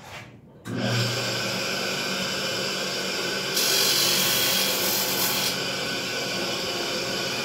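A small electric grinding tool switches on about a second in and runs steadily. For about two seconds in the middle it bites into metal with a louder, hissing grind, scratching a mark onto a revolver's cylinder-gap washer.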